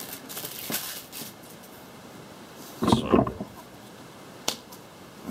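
Light clicks and rustles of cards being handled on a table, with one louder, brief noise about three seconds in and a sharp click near the end.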